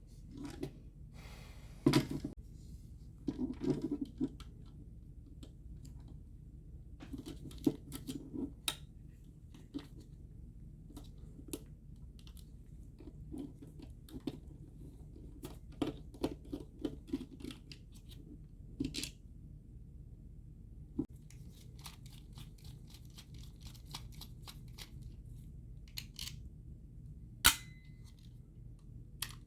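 A GFCI outlet being taken apart: irregular clicks, snaps and scraping of plastic and metal parts and tools, with a sharp snap about two seconds in and a louder one near the end.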